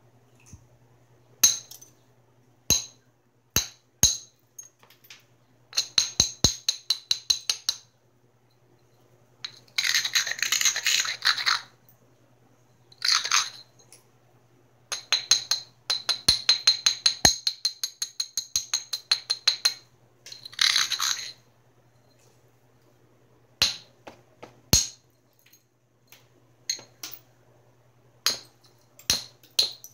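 Georgetown flint biface being worked with a hand-held knapping tool: sharp single clicks of the tool on the flint edge, and several runs of quick scratchy strokes, about eight to ten a second, as the tool is rubbed along the edge to prepare it.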